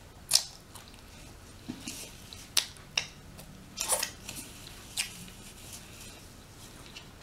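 Close-miked eating sounds: a person chewing rotisserie chicken skin, with about five sharp mouth smacks and clicks spread through.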